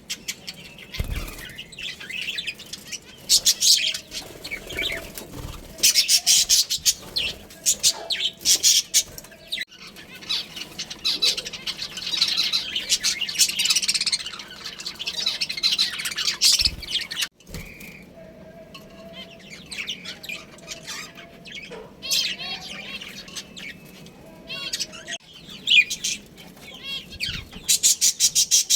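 Budgerigars chattering: a fast, continuous stream of high chirps and warbles, quieter for a stretch past the middle.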